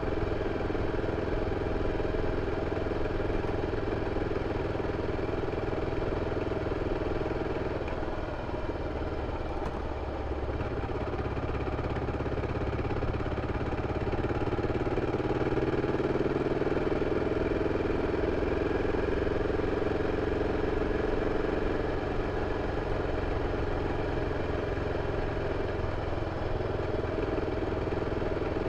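BMW F 650 CS single-cylinder engine running through its stock exhaust, steady throughout; the engine note eases off about eight to ten seconds in, then picks up again and holds a little stronger for the rest of the stretch.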